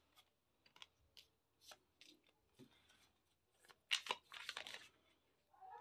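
A deck of tarot cards being shuffled by hand: faint scattered flicks and slides of cards, with a louder run of quick card riffling about four seconds in.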